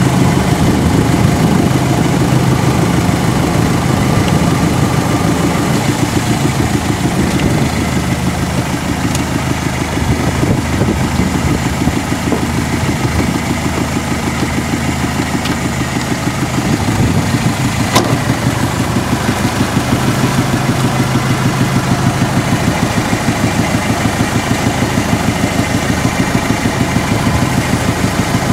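3.0-litre turbo-diesel outboard motor running steadily under load, pushing the boat along at low speed, with a fast, even pulse to its beat. A single sharp click about two-thirds of the way through.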